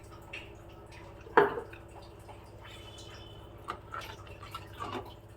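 Pot of rasam heating toward a boil, with a few scattered bubble plops that each drop in pitch; the loudest comes about one and a half seconds in. A faint steady hum sits underneath.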